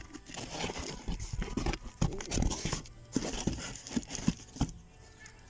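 Rustling and irregular knocks of chicken nests being handled and set in place, stopping about four and a half seconds in.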